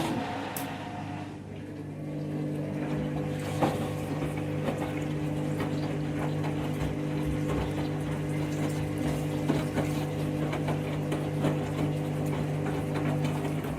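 Washing machine on a 1200 rpm final spin, the drum turning at a steady speed: an even motor hum with scattered rattles and knocks from the machine.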